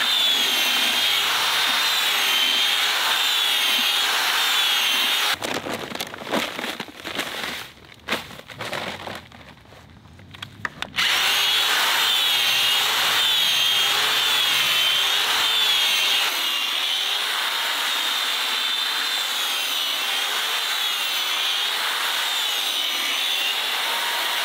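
Corded power drill spinning a paddle mixer through epoxy and sand in a plastic bucket, the motor's pitch wavering as the load changes. About five seconds in it stops for roughly six seconds, with a few knocks, then runs again.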